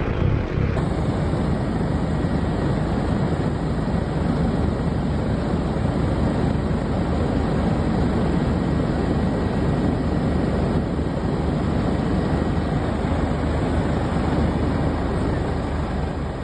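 Steady drone of an aircraft's engine and propeller, with a change in the high hiss about a second in.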